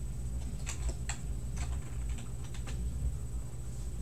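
Computer keyboard keys being typed, a handful of light, irregular clicks in the first three seconds, over a steady low hum.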